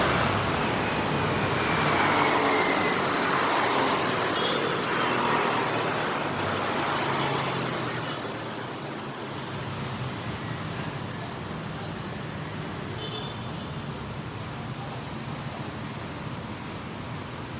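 City street traffic of motorcycles and cars passing, louder over the first eight seconds or so, then settling to a lower, steadier level.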